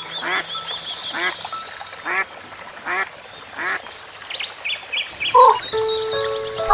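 Animal calls repeated roughly once a second, followed by a different, louder call about five seconds in.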